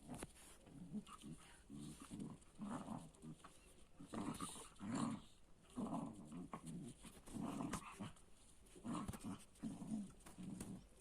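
Dogs play-fighting, growling low in short repeated bursts about once a second.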